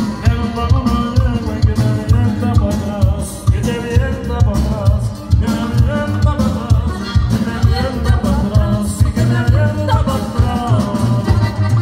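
Live norteño band playing a dance tune: electric bass and drums keep a steady repeating beat under saxophone and accordion melody.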